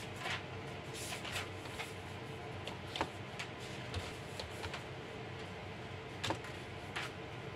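Computer keyboard keys clicking as a transaction code is typed: about a dozen separate, irregular keystrokes over a steady low hum.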